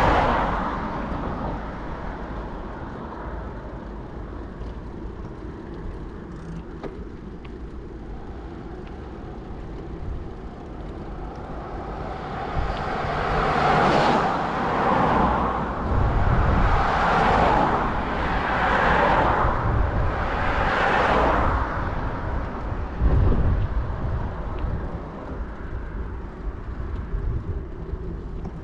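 Road vehicles passing one after another, each rising and fading as a rushing swell, with low rumbling in between.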